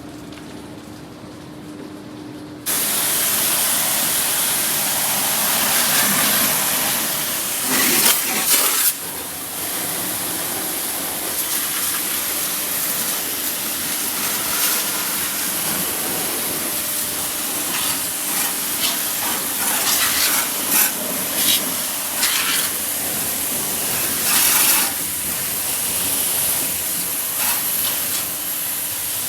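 High-pressure water jet spraying an air conditioner during a service clean: a steady loud hiss that starts abruptly about three seconds in, with brief louder surges as the spray hits different parts of the unit.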